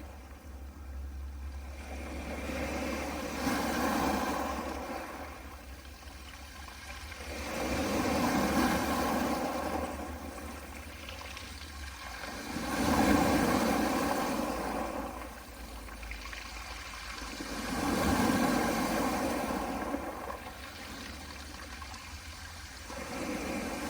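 Small waves washing onto a pebble beach, surging and falling back about every five seconds.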